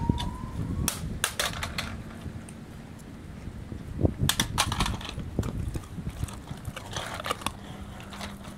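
Large dog, a Presa Canario–Great Dane cross, crunching a raw turkey neck: bone cracking and chewing in three short bouts of sharp crunches.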